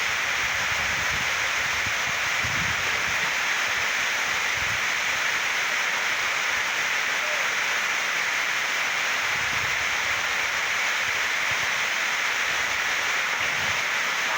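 Waterfall rushing steadily, with wind now and then buffeting the microphone in low rumbles.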